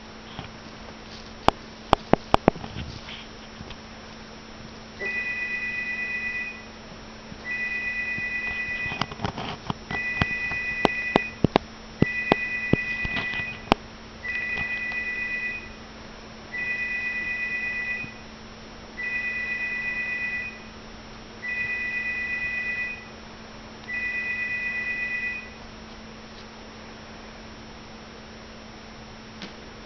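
An electronic beep of two steady pitches sounding together, repeating nine times about every two and a half seconds, each beep lasting about a second and a half. Clusters of sharp clicks and knocks come near the start and in the middle, over a steady low hum.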